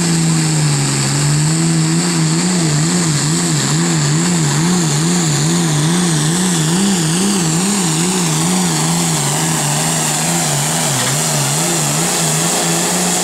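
Turbocharged International Harvester diesel tractor engine running under full load while dragging a pulling sled. Its pitch dips about a second in, then wavers up and down evenly, two or three times a second.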